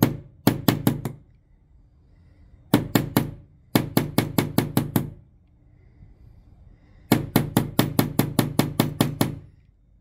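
Hammer tapping a steel pin punch to drive a pin out of a Glock pistol's trigger. The taps come in four quick runs of about six or seven a second, with short pauses between them.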